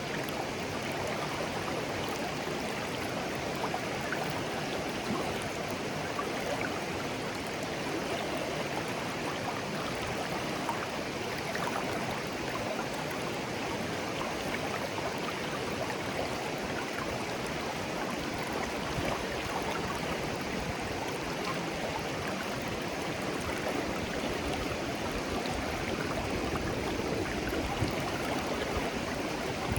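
Shallow clear stream flowing gently over stones, a steady babble and gurgle of water.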